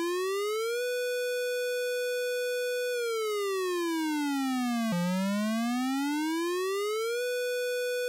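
Synthesized electronic siren wail. A buzzy tone rises, holds high for about two seconds, slides back down, then rises again and holds, as in a mock emergency alert.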